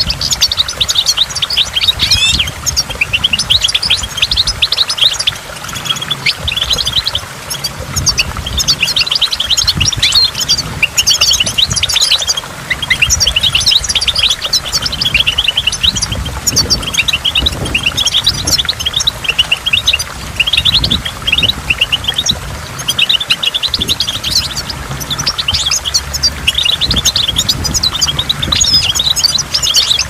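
European goldfinch singing: fast, near-continuous twittering phrases of quick chirps and trills with brief pauses, over a low rush of water.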